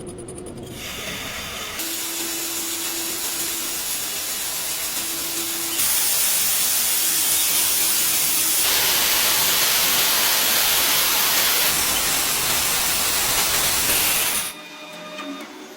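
A steady hissing spray that gets louder about six seconds in and cuts off abruptly near the end.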